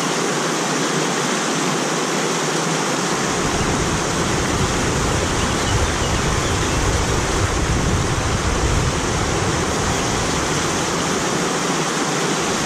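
Small stream cascade: a steady rush of falling water. A deeper low rumble joins about three seconds in and fades out near the end.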